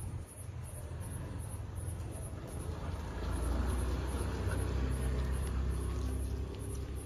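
A steady low rumble that grows a little stronger about three seconds in.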